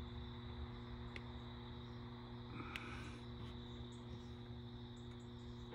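A faint, steady mechanical hum from the C8 Corvette Z06's hot engine bay, with a thin steady high whine above it and a couple of faint clicks.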